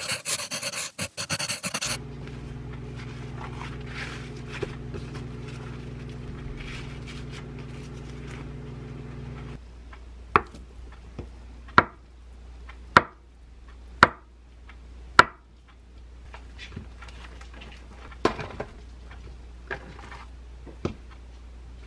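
Kitchen knife cutting a block of tofu on a wooden cutting board: five sharp knocks of the blade striking the board, about one a second, a little before the middle. Before them a steady hum runs and stops just ahead of the cutting, and a brief loud sound comes first.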